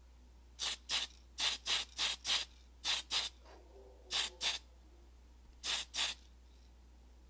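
Tamiya white primer being sprayed onto a small brass part in about a dozen short hissing bursts, mostly in pairs.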